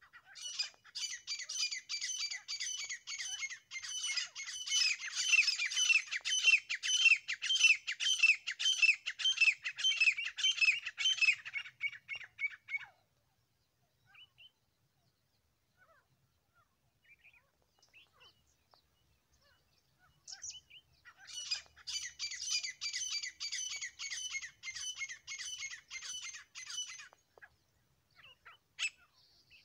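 Grey francolin calling: a fast run of repeated sharp, harsh notes, about three a second, that lasts some twelve seconds. After a pause of several seconds a second run of about six seconds follows.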